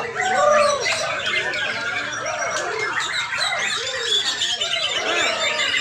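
Many caged songbirds singing at once: a dense, overlapping chorus of repeated whistles, chirps and trills with no pause.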